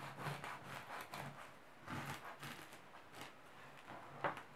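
A long knife sawing through the crisp crust of a loaf of white bread, a series of faint back-and-forth scraping strokes, with one louder stroke near the end.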